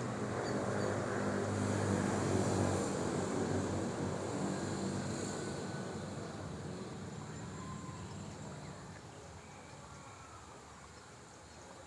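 A steady motor hum that fades gradually, with a few faint high chirps near the end.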